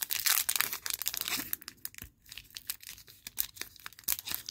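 A trading-card pack's foil-lined wrapper being torn open and crinkled by hand: irregular crackling and tearing, busiest in the first second and a half, with a short lull about two seconds in.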